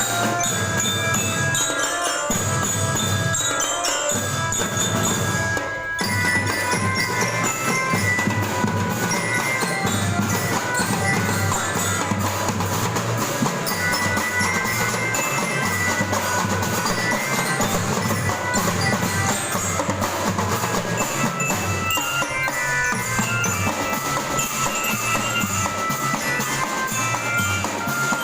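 Marching drum band playing: glockenspiel-like bell lyras carry a melody over drums with a regular bass-drum beat.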